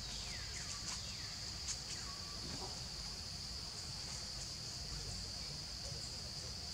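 Steady high-pitched insect drone of forest ambience, with a couple of short falling calls in the first two seconds over a low rumble.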